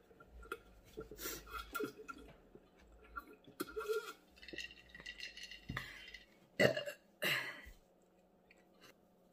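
A woman gulping down a drink from a glass jar, then burping loudly twice.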